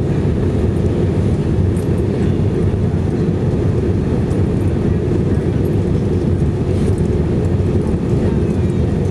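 Steady in-flight cabin drone of an Airbus A319-115 heard from a seat beside the wing: a low, even rush of airflow and the CFM56 turbofan engines at cruise.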